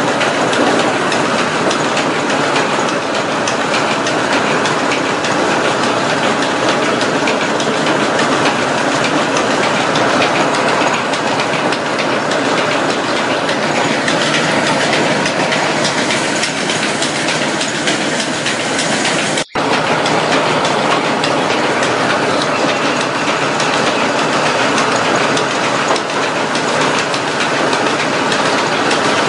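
Small electric motor driving a miniature flour mill through rubber-band belts, running with a steady, loud mechanical noise as the mill grinds wheat into flour. The sound drops out for an instant about two-thirds of the way through.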